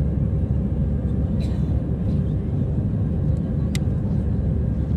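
Steady low rumble of an airliner's jet engines and rushing air, heard inside the passenger cabin during the climb after takeoff, with one short sharp click near the end.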